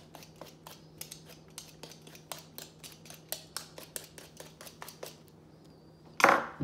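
Rapid, even series of short scraping or snipping strokes, about four or five a second, stopping about five seconds in. A single louder swish follows near the end.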